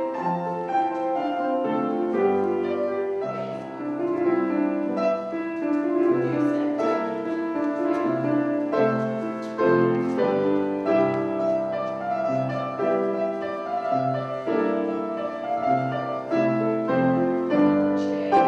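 Solo piano playing a flowing melody over a steady bass line, notes changing about every half second to a second.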